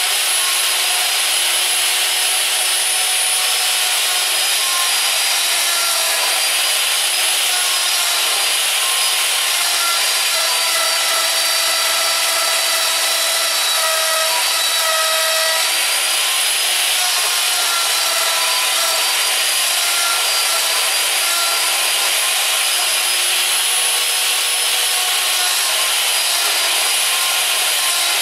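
Router on a lathe bat duplicator running continuously as it cuts into a wooden bat blank, rough-carving it to shape: a steady high whine over the hiss of wood being chipped away, its pitch wavering slightly as the cut loads the motor.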